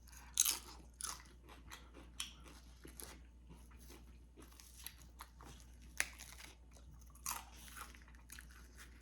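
Close-up crunching and chewing of tortilla chips loaded with dip, in irregular crisp bites and chews.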